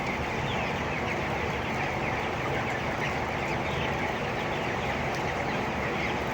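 A flock of three-week-old chicks peeping together, a dense and steady chorus of short falling cheeps, over a steady low rumble.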